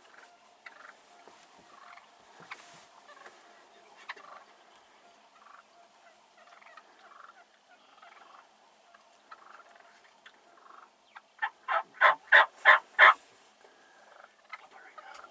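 Wild turkey gobbling once, close by: a loud, rapid string of about seven notes lasting under two seconds, starting about eleven seconds in. Before it only faint scattered small sounds.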